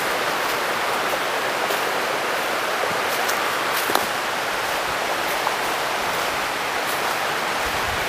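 Mountain stream rushing steadily, with a few light clicks over it, the sharpest about four seconds in.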